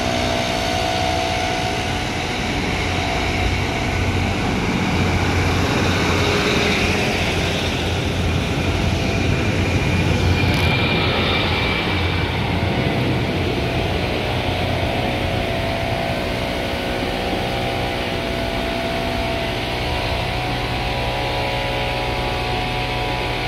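Diesel passenger train engines running with a steady drone as a train stands and then moves along the platform.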